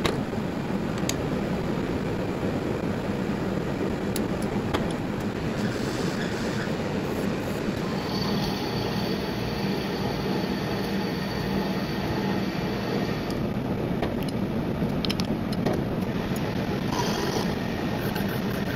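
Manual metal lathe running, spinning a drill-rod alignment pin in its three-jaw chuck while a tool bit cuts it: a steady mechanical run with a low hum, a thin high whine for a few seconds in the middle, and a few light clicks.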